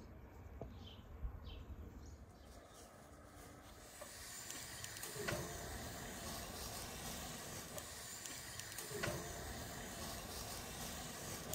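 Skewers holding whole sturgeon being set into the notched steel rails of a charcoal mangal grill: two sharp metal clinks about four seconds apart, over a steady hiss that starts about four seconds in.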